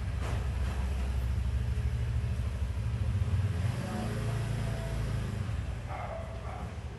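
Steady low rumble of a motor vehicle running, easing off after about five seconds.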